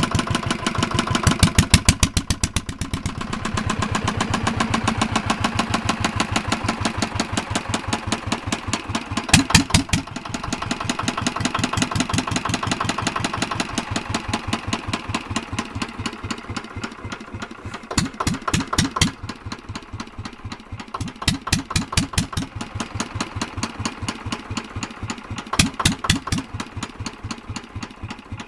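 Small single-cylinder Petter diesel engine running with a steady firing beat. Several times its beat quickens and grows louder, then settles back, as the speed lever is worked by hand.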